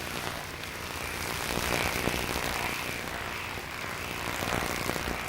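A steady rushing hiss with a few faint ticks.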